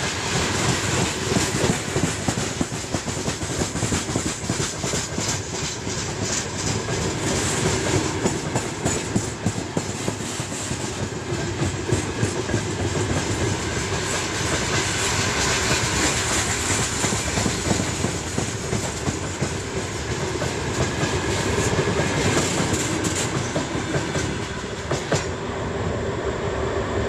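Freight train of open gondola wagons rolling past at close range: a steady rumble and rattle of steel wheels on the rails, with many repeated clacks. About 25 seconds in, the last wagon passes and the sound thins and recedes.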